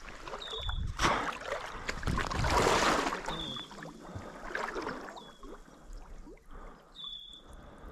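Water sloshing and splashing around the legs of someone wading through a shallow slough in waders, loudest about one to three seconds in. A short high chirp repeats four times over it.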